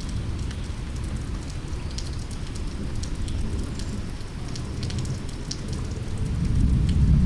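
Steady rain with scattered sharp drop hits, over a deep low rumble that swells near the end.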